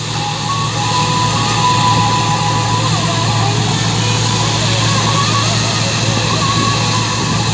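Massey Ferguson 385 tractor's four-cylinder diesel engine running steadily under load in second gear, together with the clatter and rush of the tractor-driven wheat chopper it is pulling and powering. A thin steady whine sits over the engine note.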